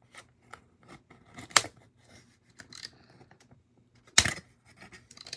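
Scissors snipping the ties that hold a toy figure in its packaging: scattered small clicks, with two sharp snips about a second and a half in and again about four seconds in.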